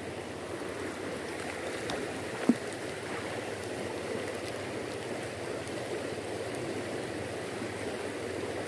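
Fast-flowing stream rushing steadily, with one brief tap about two and a half seconds in.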